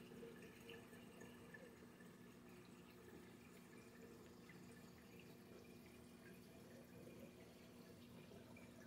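Faint water circulation in a reef aquarium: a steady low hum with light trickling and dripping.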